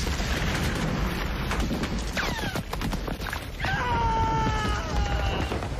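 War-film battle din: a constant rumble of explosions with scattered gunshots. Over it a wounded soldier gives one long, loud scream of pain, starting about three and a half seconds in and falling slightly in pitch.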